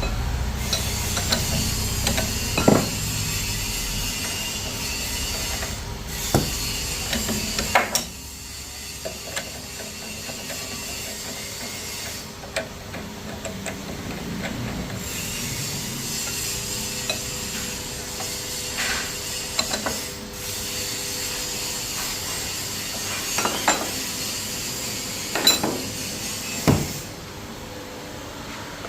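Workshop noise: a steady hiss with a faint machine hum, broken by scattered sharp knocks and clicks. The texture changes abruptly several times.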